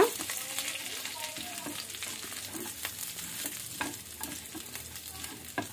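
Battered fried egg pieces being stirred with a slotted spatula in a nonstick pan with hot oil, green chillies and curry leaves, the oil sizzling steadily. The spatula scrapes and taps against the pan now and then.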